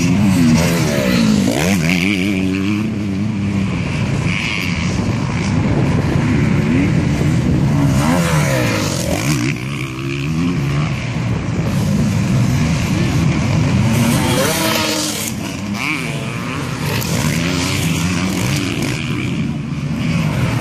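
Several motocross bikes' engines revving hard around the track, overlapping, their pitch rising and falling again and again with throttle and gear changes.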